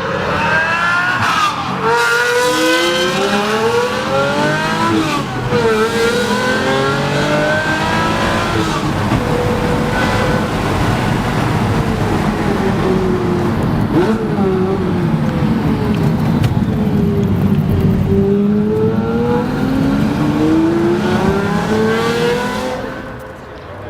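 Pagani Zonda C12 S's V12 engine being driven hard, its pitch climbing and then dropping sharply at each gear change several times, easing off and falling for a while, then rising again before it dies away near the end.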